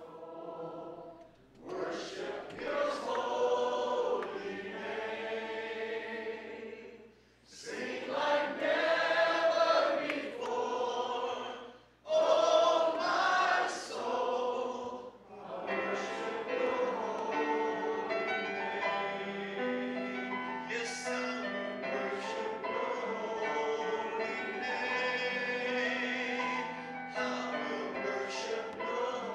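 A choir of voices singing together in long, held phrases, with two brief breaks in the first half before a long unbroken passage.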